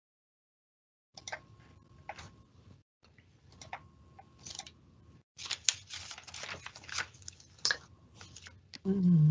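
Scattered clicks and rustling on a computer microphone, thickest a few seconds in, typical of hands handling a mouse, keyboard or the microphone. A brief low voice sound falls in pitch near the end.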